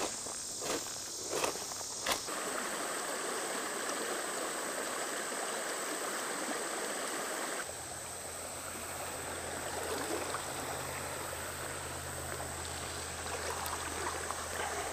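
Creek water running steadily over a rocky bed. In the first two seconds a few footsteps crunch on the gravel bank.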